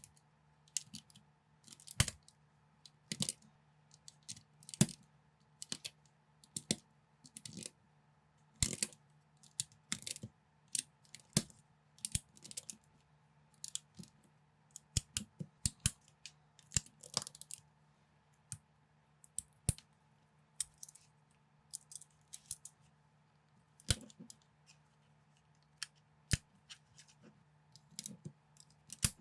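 Plastic building bricks clicking and snapping together as pieces are picked up and pressed on, in irregular clusters of sharp clicks with short pauses, over a faint steady hum.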